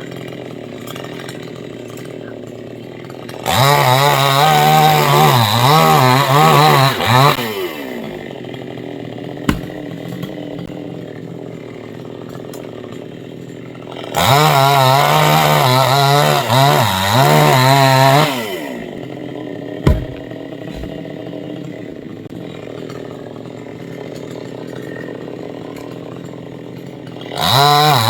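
Petrol chainsaw idling, then opened to full throttle three times for about four seconds each, its pitch wavering under load as it cuts into a coconut palm trunk. Two short sharp knocks fall in the idle stretches.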